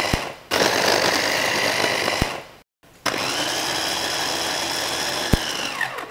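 Countertop blender running at full speed, grinding onions, garlic, chilies and turmeric with water into a spice paste. It runs in bursts, stopping briefly about half a second in and again near the middle. Its motor winds down with falling pitch just before the end.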